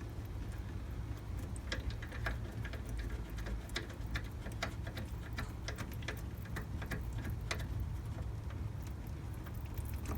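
Scattered, irregular light clicks and ticks of small metal parts and tools being handled as new brake light switches are fitted, over a steady low hum.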